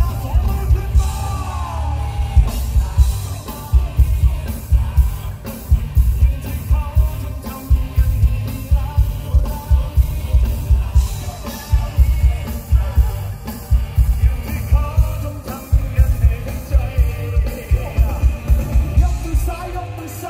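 Live pop-rock concert music through a large PA: a steady, heavy bass-drum beat about twice a second, with electric guitar and sung vocals.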